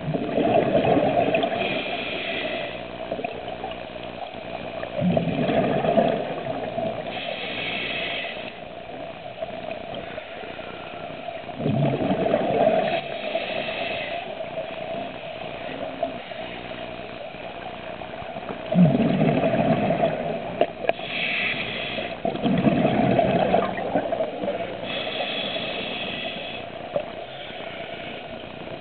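Scuba diver breathing through a regulator underwater, in a repeating cycle of a short hiss on each inhale and a rush of bubbles on each exhale, about every five to six seconds.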